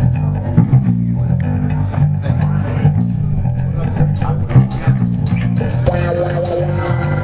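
Live instrumental funk band: a repeating bass-guitar groove over a drum kit, with a semi-hollow electric guitar playing along and holding sustained notes from about six seconds in.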